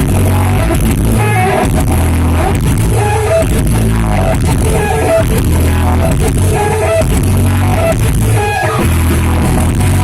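Live rock band playing loud, with guitar over a heavy repeating bass line.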